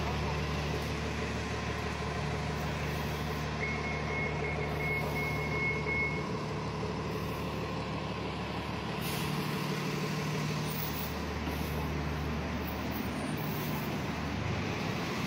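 A heavy road vehicle's engine running close by as a steady low drone. About four seconds in, a thin high whine is held for about two and a half seconds.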